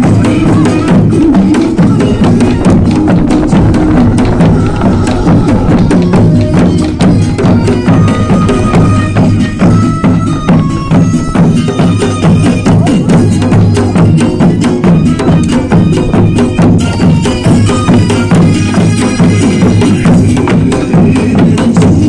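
Korean folk dance music with a fast, steady drum beat, joined by small handled hand drums (sogo) and a barrel drum struck by the dancers.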